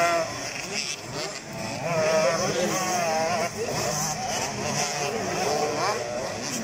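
Several racing quads' engines revving up and easing off as they ride a motocross track. Their pitches rise and fall and overlap all the way through.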